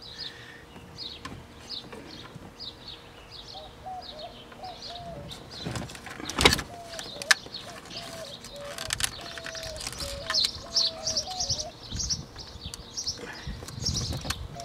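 Hands handling plastic dash parts, with scattered clicks and knocks as the wiper switch connector and the AC ducts behind a C3 Corvette's center console are disconnected. The sharpest click comes about six and a half seconds in. Birds chirp repeatedly in the background.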